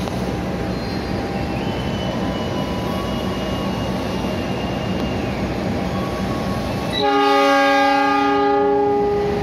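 Diesel-electric locomotive running with a steady low rumble close by; about seven seconds in, its air horn sounds one long chord blast of a little over two seconds.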